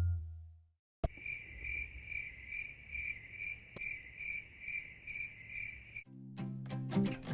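Cricket chirping in an even pulse, about three chirps a second, for roughly five seconds. Background music fades out before it and starts again near the end.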